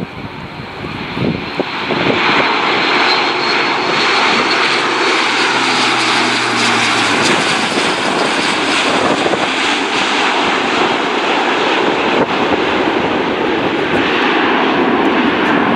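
Airbus A400M Atlas's four Europrop TP400 turboprop engines, with their eight-bladed propellers, running at high power as the aircraft makes a low pass and climbs away in a bank. The sound swells to full loudness about two seconds in and then holds loud and steady.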